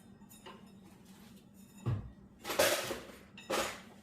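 Small metal parts being handled: a low knock about two seconds in, then two short clinking clatters.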